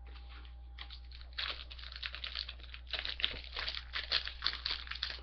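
Plastic wrapper of a pack of basketball trading cards crinkling and tearing as it is opened, a dense, irregular run of crackles starting about a second and a half in.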